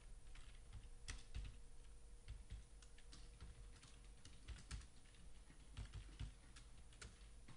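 Faint computer keyboard typing: irregular key clicks as a short line of code is typed, over a low steady hum.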